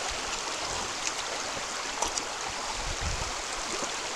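Shallow, fast river rushing steadily over a stony bed.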